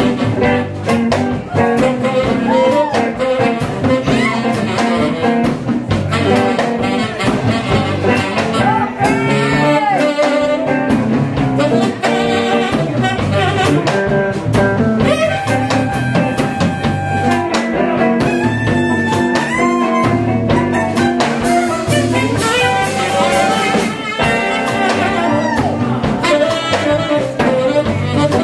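Live jazz-blues band: a tenor saxophone plays melodic phrases with bent notes over a drum kit.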